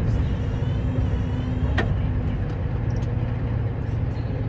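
Scania R560's V8 diesel engine running steadily, with a single sharp click a little under two seconds in.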